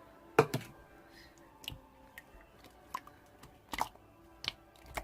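Slime being handled and pressed, giving irregular sharp clicks and pops, about seven of them, the loudest about half a second in.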